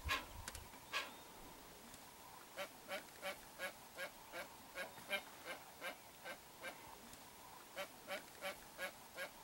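Hoatzin giving short, hoarse calls: a couple of louder ones near the start, then after a brief pause a steady run of about two to three calls a second.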